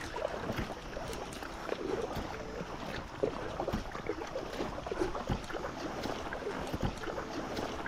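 Two-bladed kayak paddle dipping and pulling through the water beside an inflatable packraft, with irregular splashes and drips at each stroke.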